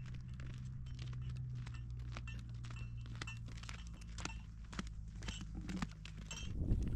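Footsteps in sandals on a stony dirt road: irregular crunching and scuffing of grit and small stones, over a low steady hum. Near the end a low wind rumble on the microphone comes up.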